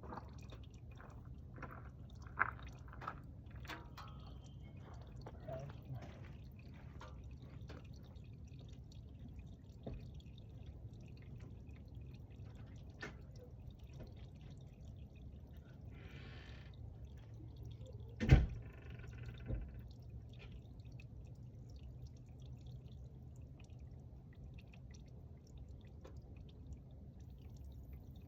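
Engine oil dripping into a drain pan as draining nears its end: irregular drips, frequent at first and thinning out. A single loud knock comes about eighteen seconds in.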